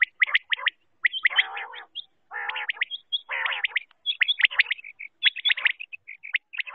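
Female common quail calling: quick clusters of short, sharp high chirps, broken by three harsher, raspy calls between about one and four seconds in.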